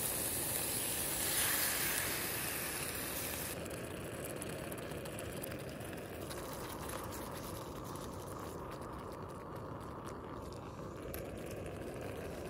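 Diced beef sizzling in a small camping pan on a Soto gas stove. The sizzle swells louder about a second and a half in as Balti sauce goes into the hot pan. A few seconds in it settles into a quieter, even bubbling simmer.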